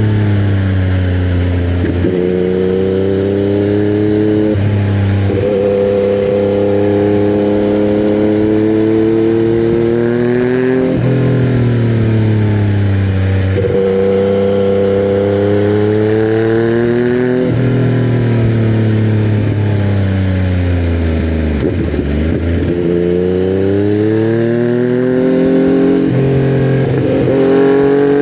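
2020 Yamaha MT-09's 847 cc inline-three, fitted with custom headers and a titanium Akrapovic silencer, heard under way. The engine pitch keeps rising and falling as it speeds up and slows, with sudden jumps in pitch at the gear changes every few seconds. About three-quarters of the way in it drops to a deep low note before pulling up again.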